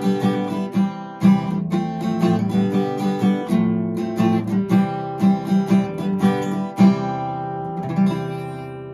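Acoustic guitar background music: quick picked notes, then a final chord that rings out and fades away near the end.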